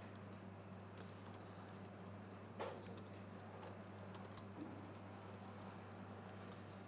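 Faint typing on a computer keyboard: scattered key clicks over a steady low hum.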